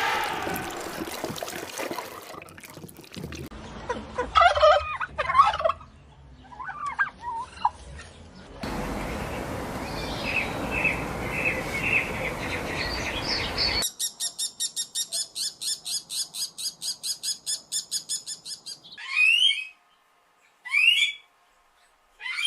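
A string of bird calls that changes every few seconds, with turkey-like gobbling and chirping. From about two-thirds of the way in comes a fast, even run of high calls, about four a second, followed by a few separate rising calls.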